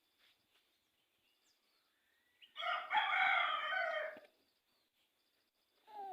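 A rooster crowing once, a single call about a second and a half long.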